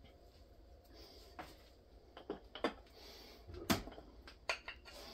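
About six separate metallic clinks and knocks, the loudest about three and a half seconds in, as a 4L80E transmission's pump assembly is pressed into the case and tools are handled against metal.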